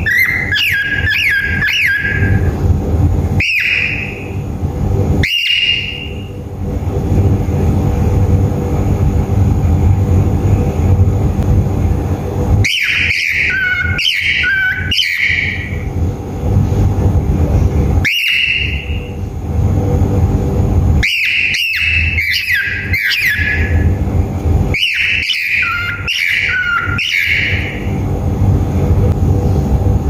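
Cockatiel calling in repeated bursts of short, shrill whistled chirps with quick pitch slides, several groups a few seconds apart. A steady low hum runs underneath.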